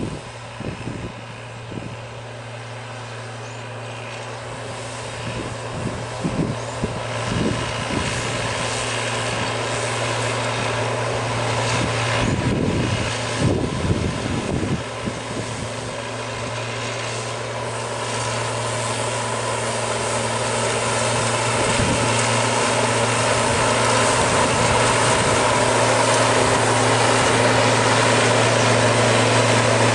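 New Holland T6050 tractor's diesel engine running steadily under load while it drives a rotary tiller through the field, growing louder as the tractor comes closer.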